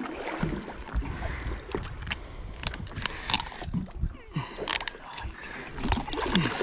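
Water splashing and gurgling against a boat's hull, with scattered knocks and clicks.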